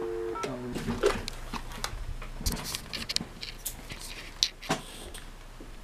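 A landline telephone's dial tone, two steady low tones, cuts off just after the start. Scattered clicks and taps follow as the corded desk phone is handled and a number is dialled.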